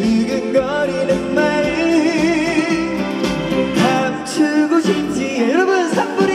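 Live trot song over a festival sound system: full band backing with a wavering melody line that bends up and down with vibrato, either sung or played.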